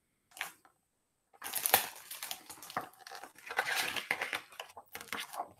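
A picture book's pages being handled and turned: paper rustling and crinkling with small taps and scrapes, starting about a second and a half in.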